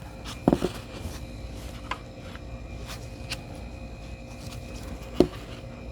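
Groups of glued 18650 battery cells being set down and arranged on a workbench: a few short knocks and clicks, the loudest about half a second in and just after five seconds, over a low steady hum.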